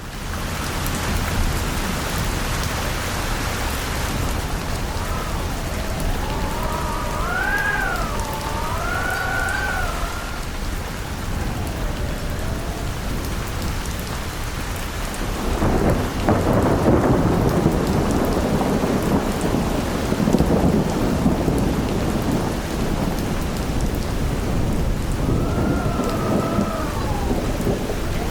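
Storm sound effect: steady heavy rain with whistling wind that wavers up and down in pitch, twice. A deep thunder rumble swells about halfway through.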